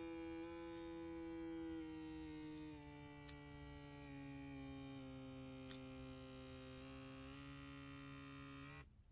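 Automatic blood pressure monitor's electric pump inflating the cuff: a steady buzzing hum whose pitch slowly sinks, with a few faint ticks, until the pump cuts off suddenly near the end.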